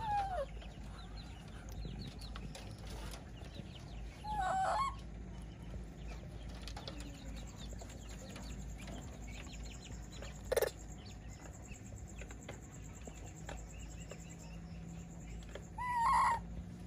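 Three short pitched animal calls, the first falling in pitch, one about four seconds in and one near the end, with a single sharp click midway and faint small ticks and knocks between.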